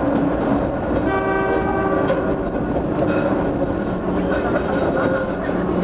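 Eizan Electric Railway railcar running along the track with steady wheel and motor noise. About a second in, the train's horn sounds once for about a second.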